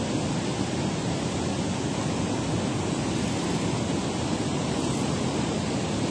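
Water rushing out of a dam spillway and churning below it: a steady, even roar of noise with no breaks.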